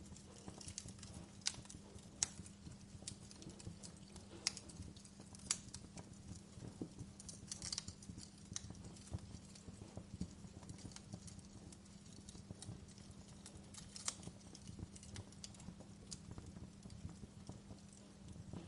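Wood fire crackling, with irregular sharp pops and snaps of varying loudness over a low steady hum.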